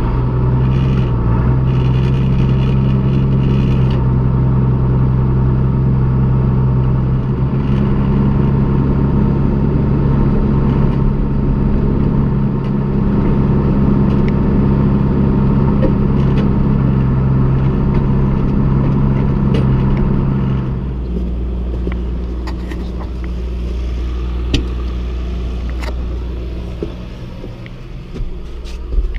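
Farm tractor engine running with a steady loud drone, hooked up to drive a hay grinder; its tone shifts slightly about seven seconds in and drops off about 21 seconds in. A few sharp knocks come near the end.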